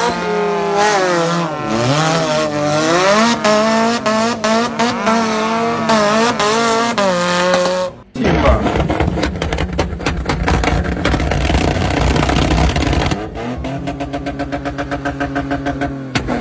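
Off-road buggy engines. For about eight seconds an engine revs hard, its pitch sweeping up and down. After a sudden cut comes a loud, rough engine full of sharp cracks, and then, near the end, a steadier engine note with an even pulse.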